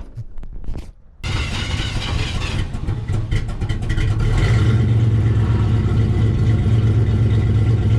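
A vehicle engine starts running loudly about a second in, its revs climbing over the next few seconds and then holding steady at a high, even level.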